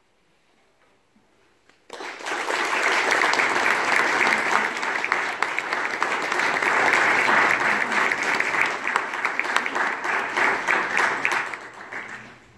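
Audience applauding: a short hush, then clapping breaks out suddenly about two seconds in, holds steady, and dies away near the end.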